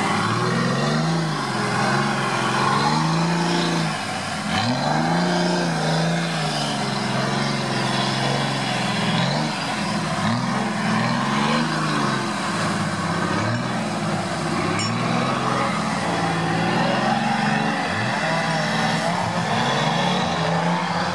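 Off-road trial prototype's engine revving hard in the mud, its pitch rising and falling again and again every second or two as the driver works the throttle, with water and mud churning around the tyres.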